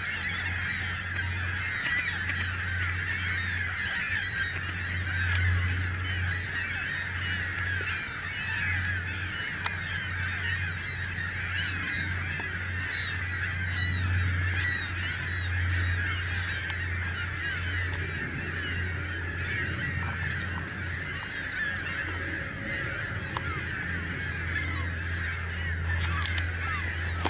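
A large flock of trumpeter swans honking in a dense, continuous chorus of overlapping calls, with a low steady hum underneath.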